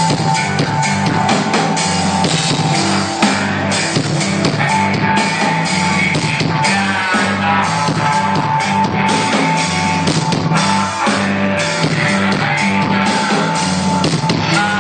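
Live rock band playing loudly: a drum kit keeping a steady beat under electric guitars.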